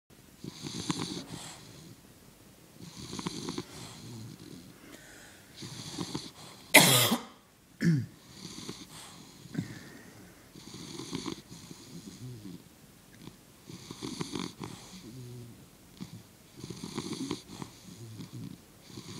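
English bulldog snoring in its sleep: rattling snores about every two and a half to three seconds, each with a high wheezy hiss, typical of a flat-faced breed's narrow airway. About seven seconds in comes one loud sudden sound, then a short falling one.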